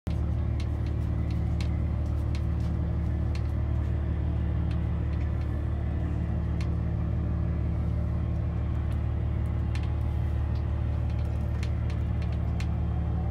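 A motorboat's engine running steadily at low speed, a constant low hum, with a few faint ticks now and then.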